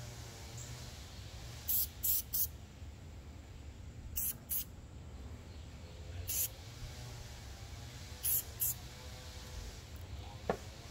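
Aerosol spray-paint can giving short bursts of spray: eight quick hisses in groups of three, two, one and two.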